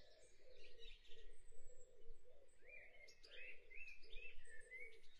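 Faint bird chirps, a handful of short rising-and-falling notes from about halfway in, over a faint low sound repeating about twice a second.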